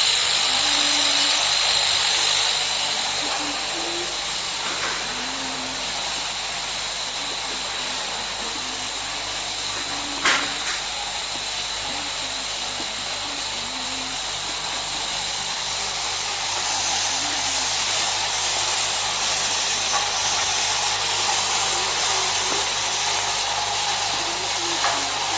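Automatic bottle-cap assembly machine running: a steady mechanical whir and hiss with a high whine through it, and a sharp click about ten seconds in.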